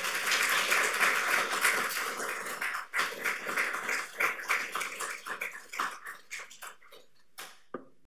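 Audience applauding: dense clapping at first that thins to scattered claps and dies away near the end.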